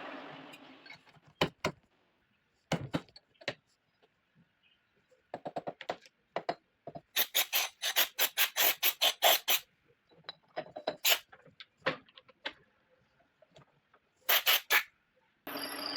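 A running machine fades out. Then come short, sharp squeaking and scraping strokes of metalworking on the air-rifle chamber being shortened, with a fast run of about fifteen strokes midway. The steady machine noise cuts back in just before the end.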